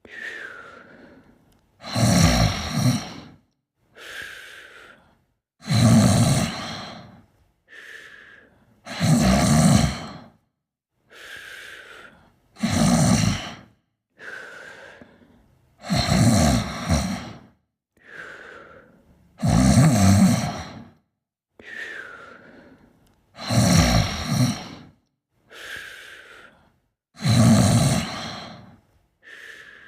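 A sleeper snoring in a steady rhythm: a loud snore about every three and a half seconds, eight in all, each followed by a softer breath that begins with a short falling whistle.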